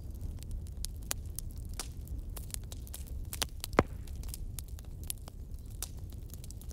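Wood fire crackling: irregular sharp pops and snaps over a low steady rumble, with one louder pop just past the middle.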